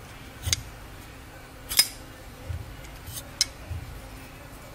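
Folding knife's blade being flicked open and closed by hand, four sharp metallic clicks as it snaps into place, the loudest about two seconds in, with soft handling thumps in between.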